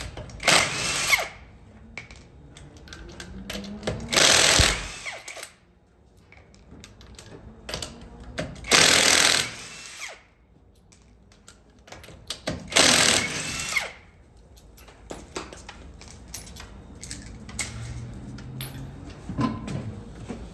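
2008 Kia Sportage's brakes grinding in four harsh bursts about a second long, roughly every four seconds, with lighter rattles and clicks between.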